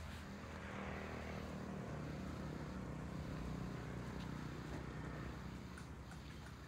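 A motor vehicle's engine passing, a steady hum that grows to its loudest about three to four seconds in and then fades.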